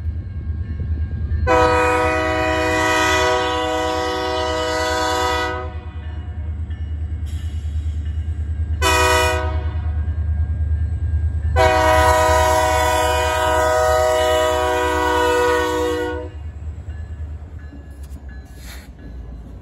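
BNSF diesel locomotive's multi-note air horn blowing three blasts, a long one, a short one, then another long one, over a steady low rumble from the passing train.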